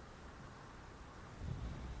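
Opel Vectra C GTS's turbocharged 2.0-litre four-cylinder (Z20NET) on its stock exhaust: a faint low rumble, then about one and a half seconds in the engine note gets louder as it begins to rev up.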